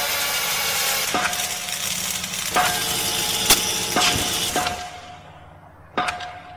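Instrumental passage of a metal band's demo recording: a dense wash of distorted guitar and cymbals with a few sharp drum hits, dying away about five seconds in, with one more hit near the end.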